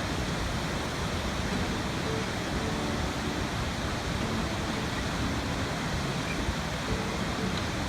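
Steady rushing water, an even hiss-like roar that does not change.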